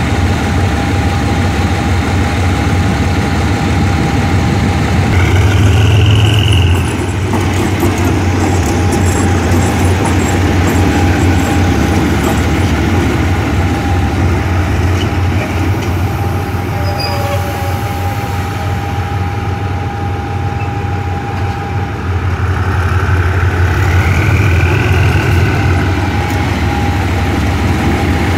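General Electric diesel-electric locomotive running with a steady heavy low drone and a constant whine. It swells twice, with a rising higher whine, about five seconds in and again near the end.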